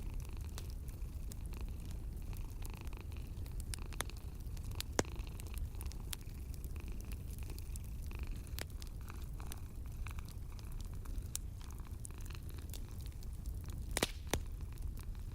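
Wood fire crackling in a fireplace, with irregular sharp pops, the loudest about five seconds in and near the end, over a steady low rumble of a cat purring.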